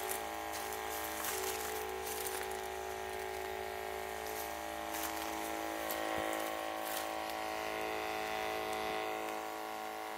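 Cordless electrostatic sprayer running: a steady electric whine from its motor with the hiss of the mist coming out of the nozzle. The tone shifts a little about six seconds in.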